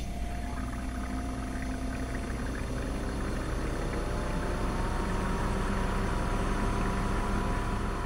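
Bodega TWW45 dual-zone 12-volt compressor fridge moving its refrigerant from one compartment to the other: a steady rushing sound over a low hum, getting slightly louder in the second half. This is normal for a fridge that keeps two zones at different temperatures with a single compressor.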